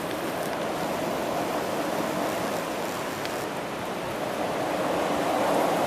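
Strong wind blowing with rain, a steady rushing noise that grows a little louder near the end.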